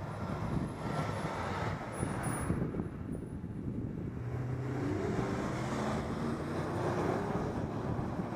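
Wind buffeting the microphone of a moving road bike, with a motor vehicle's engine passing from about four seconds in.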